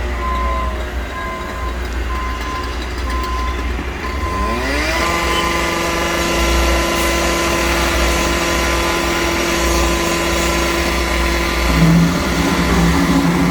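Heavy diesel construction machinery running with a deep rumble. A backup alarm beeps steadily for the first few seconds. About four and a half seconds in, the engine revs up and then holds a steady, higher pitch.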